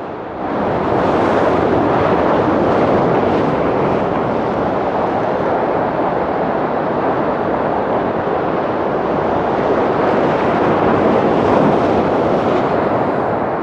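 Loud, steady rush of sea surf breaking against the boulders of a breakwater, mixed with wind. It swells up about half a second in and then holds.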